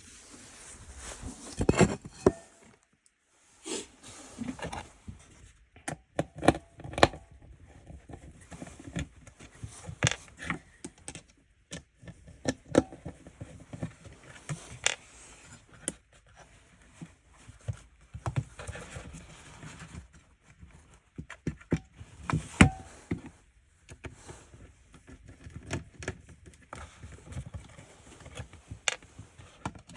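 Irregular clicks, taps and scrapes of small plastic and metal parts being handled and unscrewed as a car's light control switch panel is taken apart on a bench.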